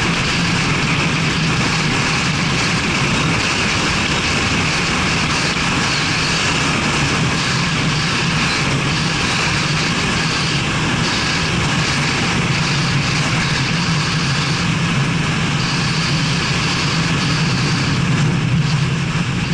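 A car driving at steady speed: a constant low engine hum under tyre and wind noise.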